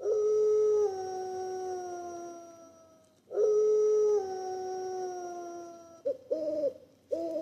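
Wolf howling: two long howls, each dropping in pitch and then sliding slowly lower, followed by three short yips near the end.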